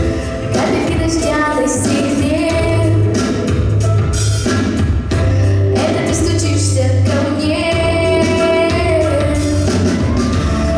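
A woman singing a song with instrumental backing, with some long held notes over a steady bass.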